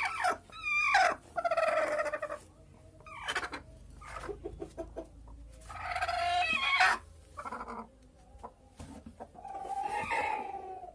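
Aseel chickens calling: a run of loud, separate calls with short clucks between them, including two long drawn-out calls of about a second each, in the middle and near the end.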